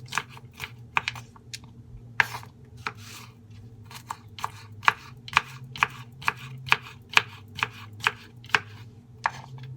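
Knife chopping vegetables on a cutting board: sharp, uneven chops about two a second.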